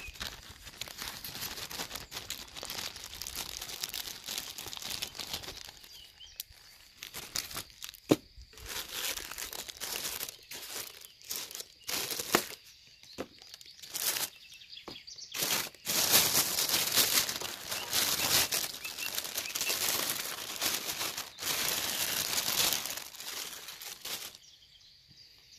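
Clear plastic bag rustling and crinkling, with white foam packing pulled away, as an amplifier is unpacked. The rustling comes in irregular bouts, with a sharp click about eight seconds in, and is loudest for several seconds in the last third before dying away near the end.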